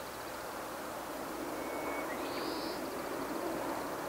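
Open-air background: a steady distant rushing that grows slightly louder, with small birds calling over it — a thin pulsing high trill, a short whistled note about one and a half seconds in and a brief high call just after.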